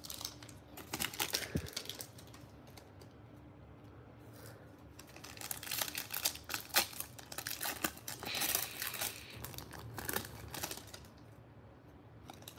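Foil trading-card pack being torn open and crinkled by hand. Bursts of crackling come about a second in, then longer and louder from about five seconds in to near the end.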